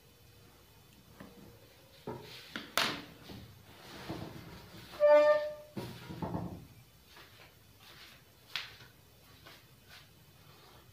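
Knocks, thumps and rustling as a person puts down a coloured pencil and gets up from a chair at a table. There is one short squeak about five seconds in, then a few light clicks.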